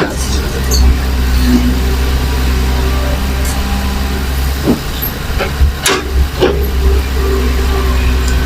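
Heavy diesel engine of earthmoving machinery (excavator or dump truck) running steadily, with a few short knocks about halfway through.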